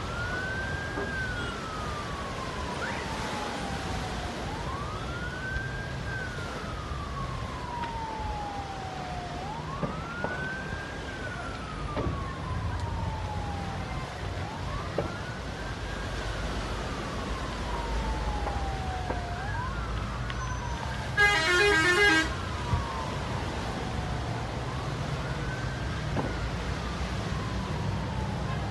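An emergency vehicle's siren wailing. Each cycle rises quickly and falls slowly over about five seconds, with a low steady rumble underneath. About three quarters of the way through, a loud pitched blast lasting about a second cuts in.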